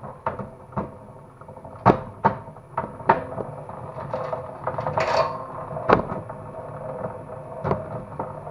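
Homemade wire-stripping machine at work, with a faint steady motor hum under irregular sharp clacks and knocks as cable is fed through and handled, about eight of them spread unevenly.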